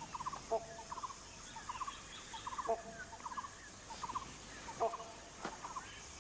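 Wild animal calls: short, rapid stuttering clusters of notes repeated about twice a second, over a faint high pulsing insect buzz.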